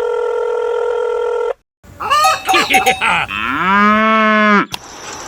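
Edited sound effects: a steady electronic tone for about a second and a half, then after a brief gap some quick warbling pitched sounds and a long low call that rises and then falls in pitch, followed by a faint noisy background.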